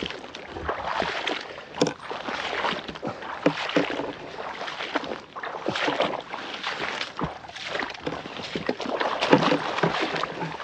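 Footsteps wading through shallow water in a flooded rice paddy: an irregular run of sloshes and splashes.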